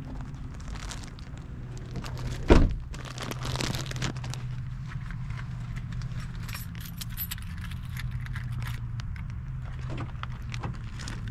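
Light jangling and clicking rattle over a steady low hum, with one loud knock about two and a half seconds in.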